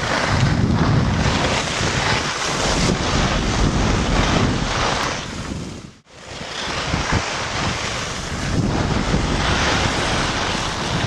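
Loud wind rushing and buffeting on the microphone of a camera moving at speed down a ski run. The rush is steady except for a sudden drop about six seconds in.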